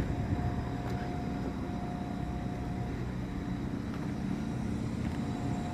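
Steady low vehicle engine rumble with a faint steady hum in it; the hum drops out about halfway through and returns near the end.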